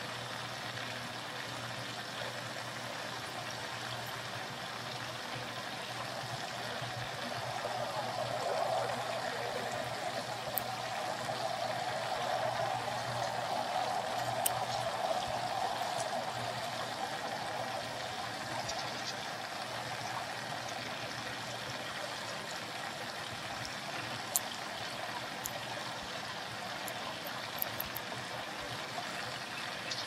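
Steady rushing, trickling noise of running water that swells for several seconds in the middle, with a few faint ticks over it.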